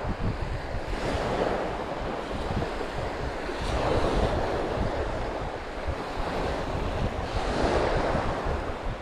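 Small waves breaking and washing up on a sandy beach, surging three times a few seconds apart, with wind rumbling on the microphone.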